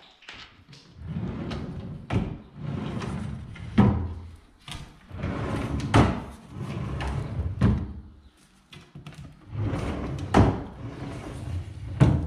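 Drawers of a newly assembled IKEA Malm chest of drawers being pulled open and pushed shut by hand, about six times in a row. Each stroke is a rumbling slide along the runners ending in a sharp knock as the drawer hits its stop or closes.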